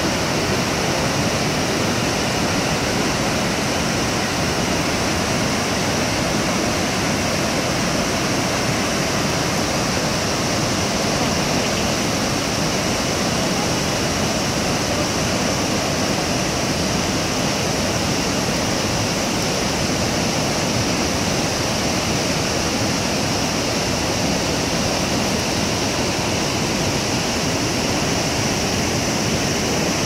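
Kegon Falls and the cascading river below it: a steady, even rush of falling and tumbling water.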